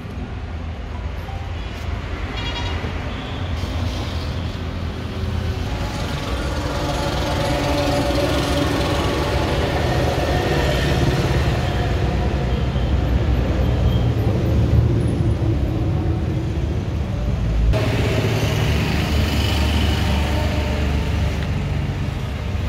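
Yanmar YM357A tractor's diesel engine running steadily, heard up close at the open engine bay.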